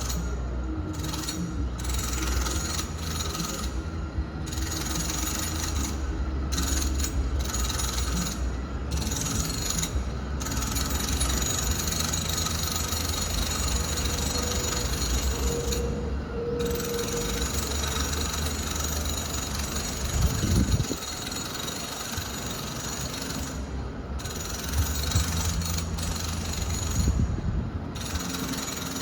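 Home renovation work heard from a distance, through the walls of a room: a continuous low rumble of machinery with a mechanical rattling grind, and a couple of louder knocks.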